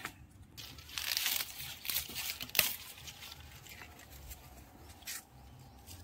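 Rustling and crinkling of sweet corn husks and leaves being handled, with one sharp snap about two and a half seconds in.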